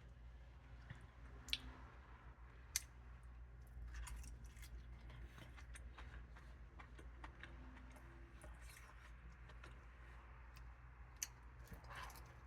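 Faint chewing of beef, with scattered sharp clicks and smacks, over a low steady hum.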